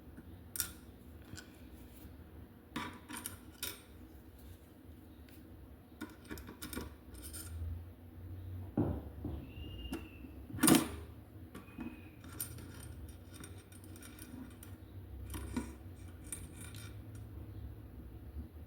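Light metallic clinks and taps of screws and a screwdriver being handled against cabinet hardware, scattered and irregular, with one louder knock about eleven seconds in and a couple of brief squeaks.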